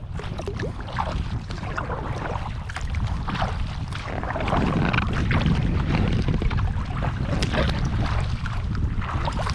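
Kayak paddling: the paddle blades dip and splash, with water dripping off them, over a steady low rumble of wind on the microphone that grows heavier about halfway through.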